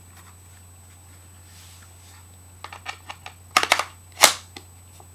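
Clicks and knocks of hard plastic parts being handled: a fold-out toolkit and a BT TM-15 paintball marker. There is quiet at first, then a run of small clicks, then a few louder knocks, the loudest about four seconds in.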